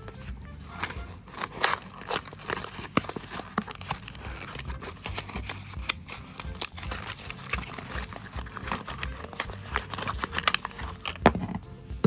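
Small cardboard blind box being handled and opened by hand, its flaps pulled apart, with irregular crinkling and crackling that goes on throughout.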